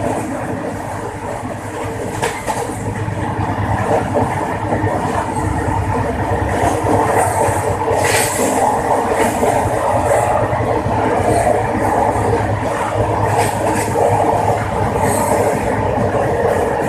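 Howrah–Barbil Jan Shatabdi Express passenger train running at high speed: a steady, loud clatter and rumble of steel wheels on the track. A few brief high-pitched screeches cut through, the strongest about eight seconds in.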